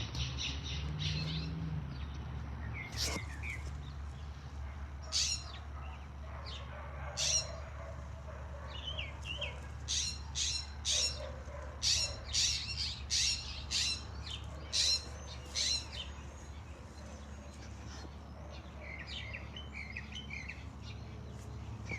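Birds chirping: a run of short, sharp high calls, about two a second through the middle stretch, with softer, lower chirps near the end. A steady low hum runs underneath.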